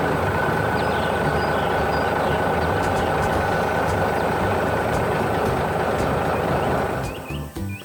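Heavy machine engine running steadily with a low rumble, cutting off about seven seconds in, with faint bird chirps over it.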